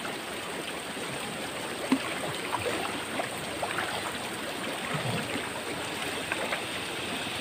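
River water running steadily, with one sharp knock about two seconds in.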